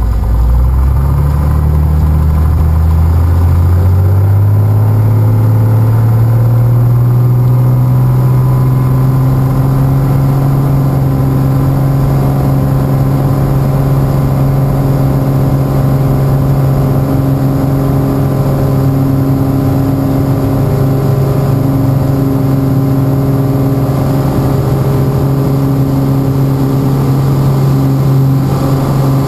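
Piper Lance's six-cylinder piston engine and propeller rising in pitch over the first several seconds as the throttle goes up, then holding a steady full-power note for the takeoff roll.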